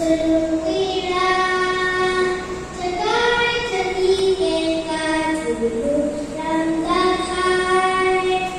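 A group of children singing a song together, in long held notes that step up and down in pitch.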